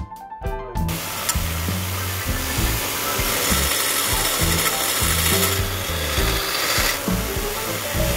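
Power grinder grinding steel, a steady abrasive hiss that starts about a second in and runs on with a slight easing near the middle, over quieter background music.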